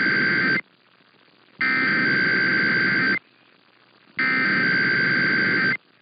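Emergency Alert System SAME header: bursts of warbling two-tone digital data from KUTR-AM's required weekly test, received over AM radio. The first burst ends about half a second in, then two more follow about a second apart, with faint static hiss in the gaps.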